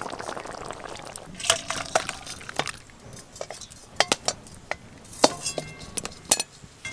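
Scattered metallic clinks and scrapes of a spatula and an aluminium karahi against a steel serving bowl, some with a short ring, as thick fish curry is tipped out and scraped from the pan.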